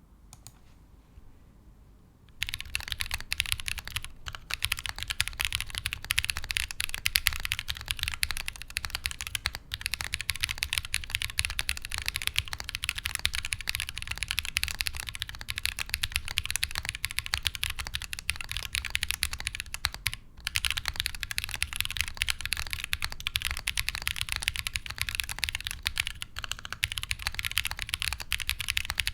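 Fast continuous typing on a Bear65 custom mechanical keyboard: Holy Panda tactile switches lubed with Tribosys 3204, an aluminium plate on a silicone gasket mount with no foam, and GMK keycaps, giving a dense stream of key clacks. The typing starts about two seconds in and stops briefly about two-thirds of the way through.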